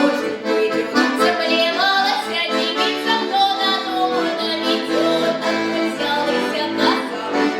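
Accordion music: sustained chords and a melody line played continuously.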